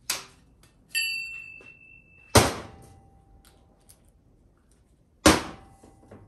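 Heavy steel transmission gear-train parts knocking against each other and the metal workbench as they are handled and set down: a short click, a high ringing ding about a second in, then two loud clanks about three seconds apart, each ringing briefly.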